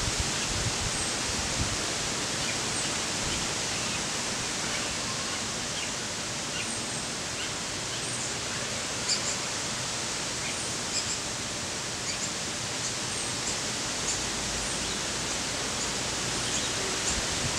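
Steady, even rushing hiss of outdoor ambience, with faint, brief bird chirps scattered throughout.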